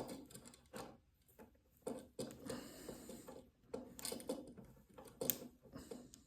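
Hands working stiff electrical wires: rustling and scraping, with several sharp clicks, as a plastic wire nut is twisted down onto two neutral wires.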